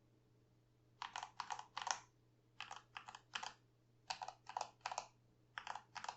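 Typing on a Keychron V2 65% mechanical keyboard with pre-lubed Gateron Milky Yellow Pro linear switches and PBT XDA keycaps. About a second in, the keystrokes start and come in quick runs of three or four with short pauses between.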